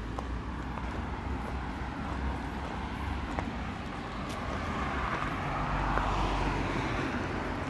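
Street traffic: a steady low rumble, with a passing vehicle swelling to loudest about six seconds in and then fading.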